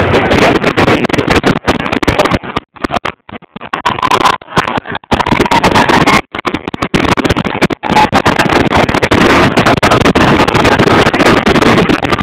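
Aerial fireworks bursting in quick succession, loud and distorted through an overloaded camera microphone. The sound cuts out briefly a few times.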